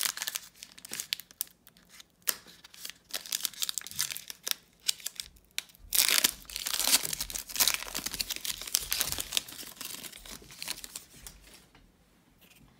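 Foil trading-card pack being crinkled and torn open by hand: crackling wrapper throughout, with a louder, longer stretch of tearing and crinkling about halfway through, fading out near the end.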